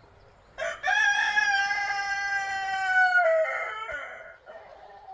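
Rooster crowing once: a short lead-in note, then a long held note that sags in pitch at its end. A fainter falling call follows near the end.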